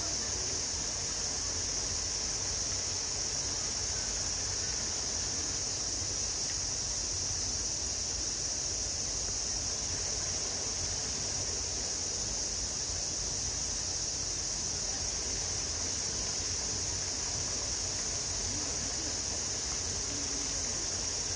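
Summer cicadas droning: a steady, high-pitched hiss that never changes or breaks, over a faint low rumble.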